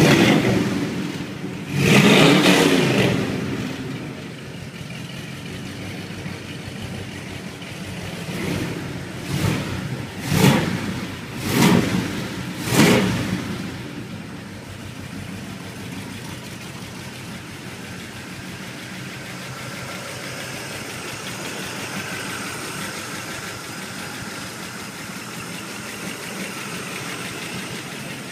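1974 Ford Landau's V8 engine running: revved once for a second or so near the start, then blipped quickly four or five times, after which it settles into a steady idle for the second half.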